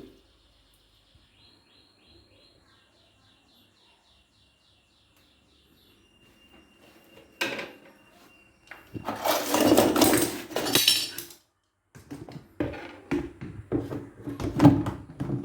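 Faint high chirps repeating at an even rate, then a loud burst of noise lasting about two seconds and a run of clattering knocks of hard objects.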